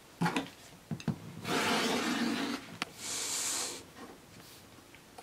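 Quilting tools being handled on a cutting mat: an acrylic ruler set down on a stack of cotton squares with a few light clicks, then a rasping scrape lasting about a second, about a second and a half in, and a shorter, higher hissing slide about three seconds in.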